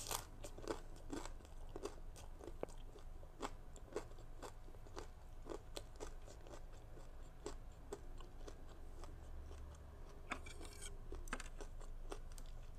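Close-miked chewing of crunchy food with the mouth closed: a steady run of soft crunches and small wet clicks.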